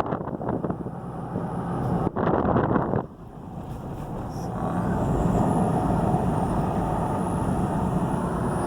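Vehicle driving along the road, heard from inside: steady engine and tyre rumble, with a rougher patch about two seconds in, then the noise building back up as it picks up speed.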